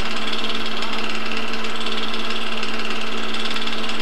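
Film projector running: a steady motor hum under a fast, even clatter from the film mechanism.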